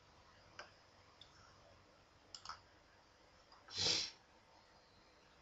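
Computer keyboard keys clicking as a few letters are typed: a handful of faint, separate clicks. About four seconds in there is a short hiss of noise, the loudest sound.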